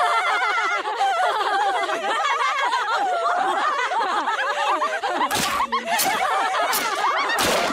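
Several women laughing and shrieking together, their voices overlapping without a break. From about five seconds in, a few short, loud splats come through the laughter as they tear into the food.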